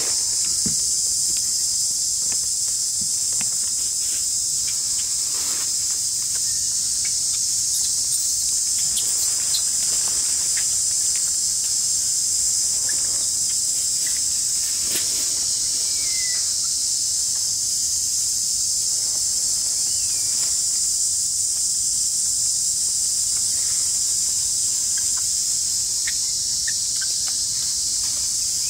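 Insect chorus in the forest: a steady, high-pitched shrill drone that holds without a break, with faint scattered clicks and a few short chirps beneath it.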